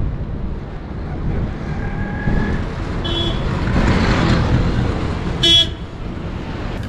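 Road traffic going by close at hand, one vehicle swelling past around the middle, with a short car horn toot about five and a half seconds in and a fainter beep about three seconds in.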